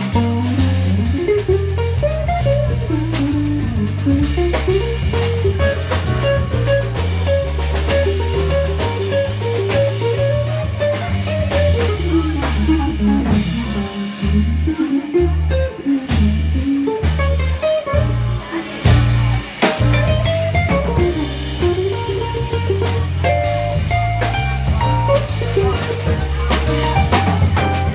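Live small jazz band: an electric archtop guitar plays a running single-note solo line over a steady walking bass line and a drum kit.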